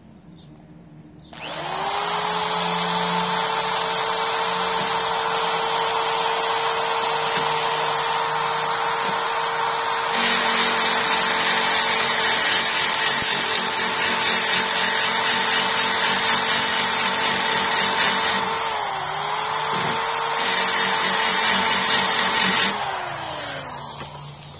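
Corded electric hand drill spinning a drill bit in the square hole of a creeper's metal frame tube, taking off metal to open the hole up for a caster stem. The motor starts about a second and a half in and whines steadily. From about ten seconds in, a harsh grinding of the bit cutting metal joins it. The grinding eases off for a moment while the motor pitch dips, then comes back. Near the end the trigger is released and the whine falls as the drill spins down.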